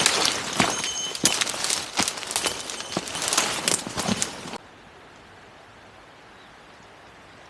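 Footsteps crunching through leaf litter in a quick, irregular run of crackles, which cuts off suddenly a little past halfway and leaves only a faint steady hiss.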